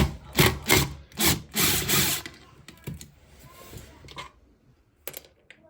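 Hand tool working on a toilet boxing panel: a quick run of rasping strokes, about two or three a second, loudest in the first two seconds, then fainter scrapes.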